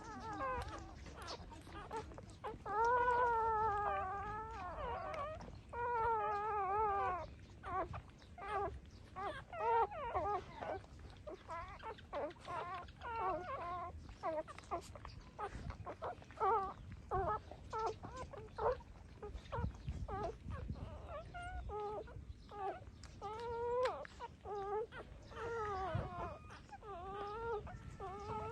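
Newborn puppies whimpering and squealing while nursing: many short, high, quavering cries, with two longer wavering wails a few seconds in.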